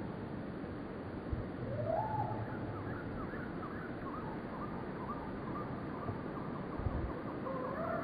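Soft hoot-like animal calls: a rising and falling call about two seconds in, a string of short chirps in the middle, and a wavering call near the end, over steady outdoor background noise.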